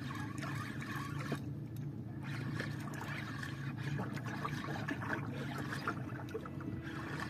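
A boat's motor humming steadily at low speed, with water trickling and lapping against the hull and scattered light clicks.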